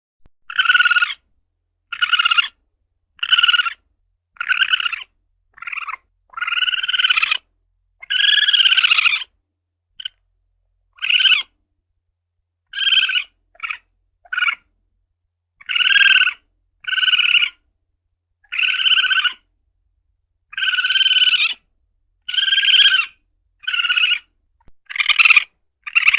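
Asian palm civet (luwak) calling over and over: a long series of short calls, each about half a second to a second long, coming about one to two seconds apart.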